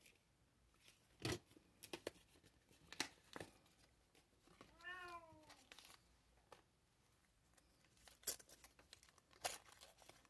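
A cat shut outside the door meows once about five seconds in, one call that rises and then falls, asking to be let in. Scattered faint clicks and knocks come before and after it.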